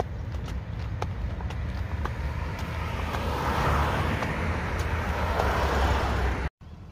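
Road traffic with a steady low engine rumble, swelling as a vehicle passes in the middle. In the first couple of seconds a draft horse's hooves clop on the asphalt at a walk. The sound cuts off abruptly near the end.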